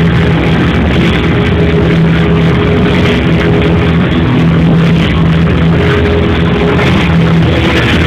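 Loud circus show music playing, with long held low notes.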